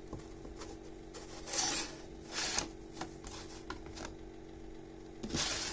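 Handling noise from plastic wrestling action figures being moved and posed close to the microphone: a few short rustling, scraping bursts, the biggest about a second and a half in, again near the middle and near the end, over a steady low hum.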